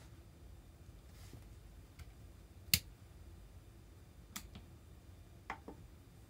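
A handful of sharp clicks and taps from hands working a newly installed 12-volt outlet panel and the tools beside it, the loudest a bit under three seconds in, over a low steady hum.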